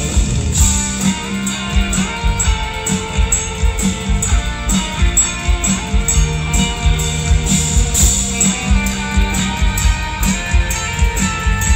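Live rock band playing an instrumental passage: a solid-body electric guitar plays over drums and bass at a steady beat.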